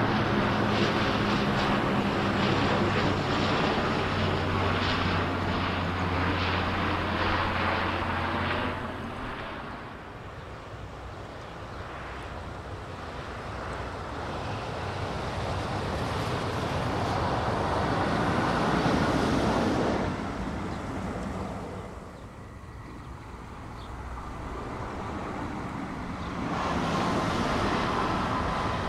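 A Dash 8-400 turboprop airliner flies low overhead on landing approach, its propellers droning steadily for about the first nine seconds. Then electric commuter trains pass across the fields: one swells and fades through the middle. Near the end an SBB Re 450 electric locomotive with double-deck coaches approaches, with a steady tone over its running noise.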